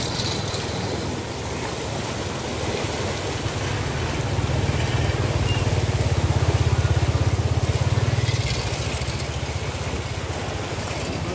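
A small engine running with a fast, even putter, growing louder about four seconds in and easing off again after about eight and a half seconds.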